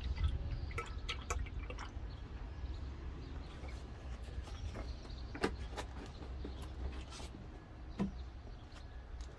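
Brake fluid being poured into a pressure bleeder's tank, with a few scattered clicks and knocks over a steady low rumble.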